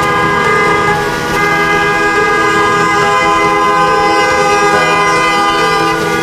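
Several car horns honking in long, overlapping held blasts as a convoy of cars drives past, the tones shifting between pitches as different horns come and go.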